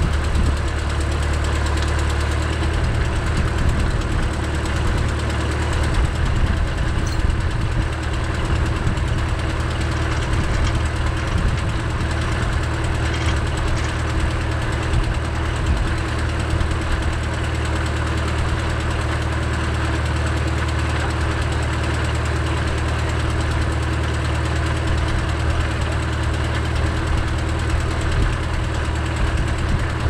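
John Deere 310SE backhoe's diesel engine idling steadily, an even low hum with no revving.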